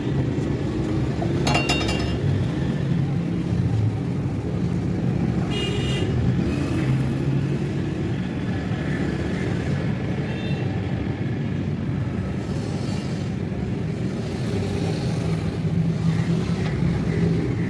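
Steady low rumble of running vehicle engines, with a couple of brief higher-pitched tones about two and six seconds in.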